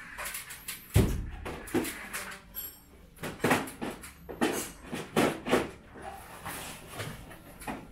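Plastic casing of an indoor split air-conditioner unit knocking and clunking against its metal wall mounting plate as it is lifted and hooked into place, with a heavy thump about a second in and lighter knocks after.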